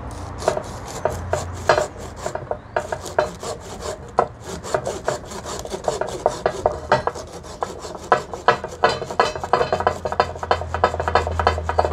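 A small hand saw cutting through a Pithecellobium branch just below an air layer to detach the rooted layer, in repeated rasping back-and-forth strokes. The strokes come quicker and more evenly in the last few seconds.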